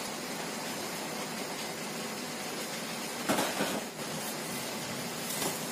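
Steady background hiss, with a short soft rustle a little over three seconds in and a fainter one near the end: hands rolling yeast bread dough into a log on the work surface.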